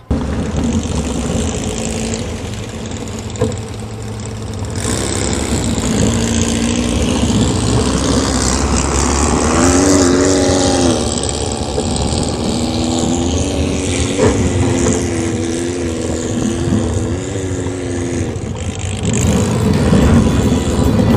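Air-cooled Volkswagen flat-four engine of a Baja Bug driven off road, its note rising and falling repeatedly as it revs, over a steady rush of noise.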